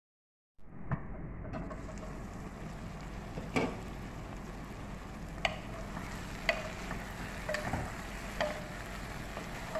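Wooden spoon stirring fried chicken pieces and vegetables in a pot, with a short knock or scrape against the pot about once a second, over a steady sizzle of frying. The sound starts about half a second in.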